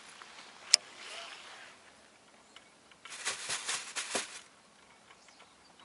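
Baitcasting rod and reel being handled: one sharp click about a second in, then a short flurry of clicks and rustles a few seconds later.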